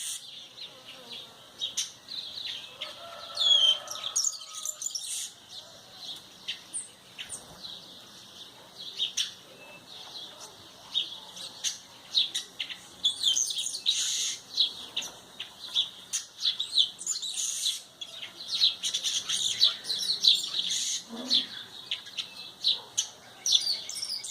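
Small birds chirping: many short, high calls, coming thicker in the second half.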